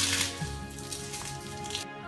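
Background music with steady sustained notes, over a hissing, rustling noise that cuts off suddenly near the end.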